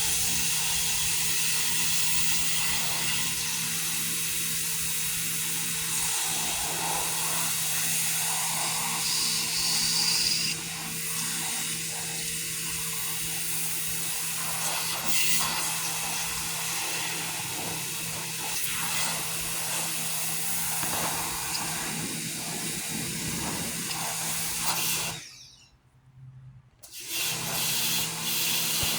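Pressure washer spraying: a steady high hiss of the water jet over the even hum of the washer's motor and pump. Everything cuts out for about two seconds near the end, then resumes.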